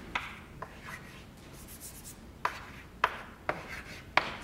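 Chalk writing on a blackboard: a series of sharp taps and short scrapes as the chalk strikes and drags across the board, with a quieter gap of about a second and a half in the middle.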